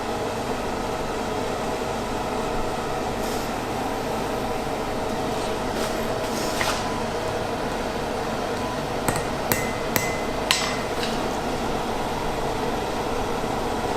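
Blacksmith's hammer striking iron on an anvil with a metallic ring: a few scattered blows, then a quick cluster of four in the second half. A steady rushing noise runs underneath.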